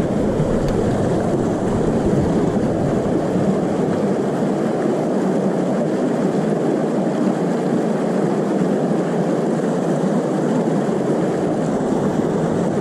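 Steady rushing of shallow stream water, an even hiss with no distinct splashes. A low rumble under it fades out about four seconds in.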